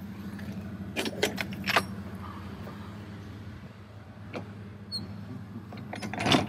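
Semi-truck's diesel engine idling steadily, with sharp metallic clicks and clinks about a second in, once midway and again near the end.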